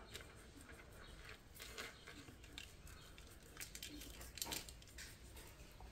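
Near silence with a few faint, scattered rustles and soft taps of paper and cardstock samples being handled.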